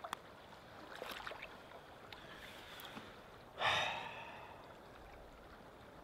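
A man's short, breathy sigh a little past halfway, over faint river water and a few light ticks near the start.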